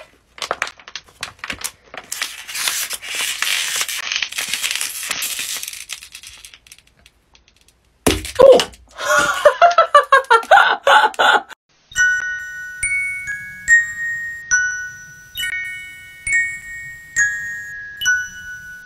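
A plastic water bottle crackling and crinkling as it is twisted and squeezed for several seconds, then a sudden sharp sound about eight seconds in followed by laughter. From about twelve seconds on, a tinkling bell-like tune of single notes, like a music box or glockenspiel.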